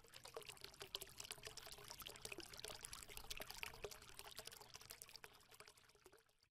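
Faint trickling, pouring water made of many tiny clicks and splashes, fading out near the end.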